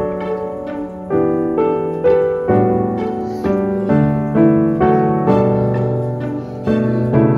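Background music: a gentle piano melody, notes struck about twice a second and left to ring.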